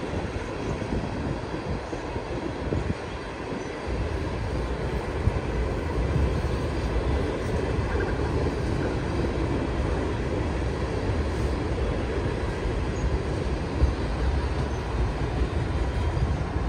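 Freight train tank cars rolling past: a steady noise of steel wheels on the rails, with one sharper knock near the end.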